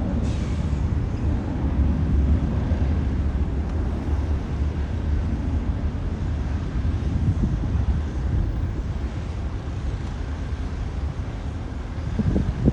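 Steady low rumble of an Airbus A220's Pratt & Whitney PW1500G geared turbofan engines, mixed with wind buffeting the microphone. A brief bump comes near the end.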